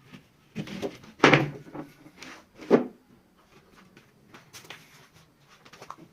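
A few sharp knocks and clatters, the loudest about a second in and another near three seconds, followed by lighter ticks and taps.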